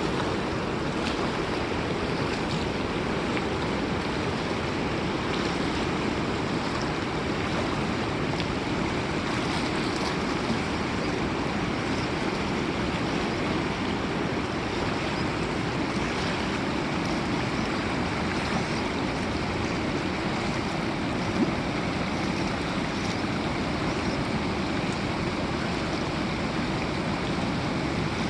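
River water flowing and splashing over rocks, a steady rushing with small splashes throughout.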